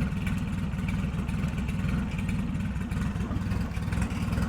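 Honda B20 four-cylinder engine in an Acura Integra idling steadily on its first start-up after the swap.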